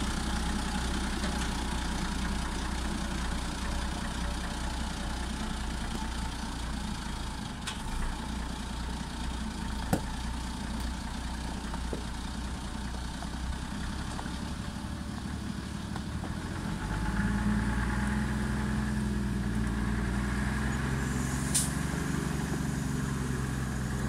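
FAP 4x4 timber truck's diesel engine running as the log-laden truck drives off along the track. About seventeen seconds in, the engine note rises and grows louder. Two short sharp clicks come partway through and near the end.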